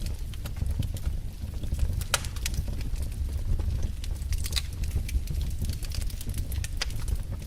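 Wood fire in a fireplace crackling, with frequent sharp pops and snaps at irregular intervals over a steady low rumble of the flames.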